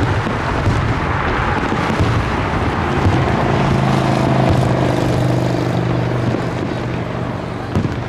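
A motor vehicle engine running, its steady hum strongest from about three to six seconds in, over continuous background noise.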